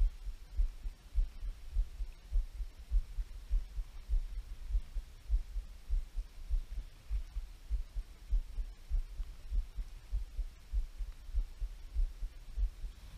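Wind buffeting the microphone of a body-mounted action camera: low, irregular rumbling thumps, several a second.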